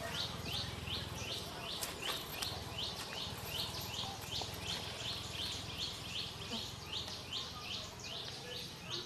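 Insect chirping in a steady rhythm, a little under three high pulses a second, over a low steady rumble.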